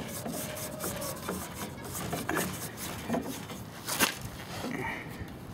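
Light rubbing and clicking as a plastic hydraulic brake line hose is handled and fed up along a fiberglass landing-gear leg, with one sharp knock about four seconds in.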